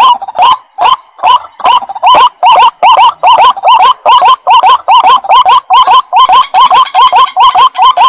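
White-breasted waterhen calling: short notes that each rise in pitch, repeated about four times a second, uneven for the first two seconds and then steady and loud.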